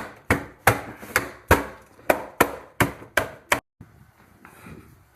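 A rapid series of sharp knocks, about three a second, that stops abruptly about three and a half seconds in: repeated striking, as with a hammer or hand tool.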